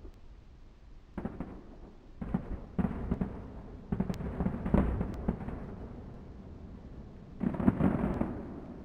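Aerial firework shells bursting in volleys of rapid bangs and pops: a short cluster about a second in, a longer run from about two to five and a half seconds, and a last dense volley near the end.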